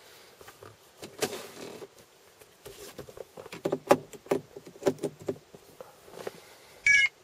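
An iPhone 4 being handled and pushed into a plastic dock: a rustle about a second in, then a run of sharp plastic clicks and knocks as it seats. Near the end comes one short, loud electronic beep, the phone's chime on connecting to power.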